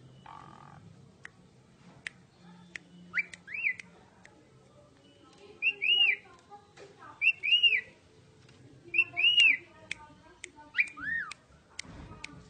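A male Asian pied starling (jalak suren) singing. Sharp clicking notes come first, then from about three seconds in, pairs of loud arched whistles are repeated five times, about every one and a half to two seconds.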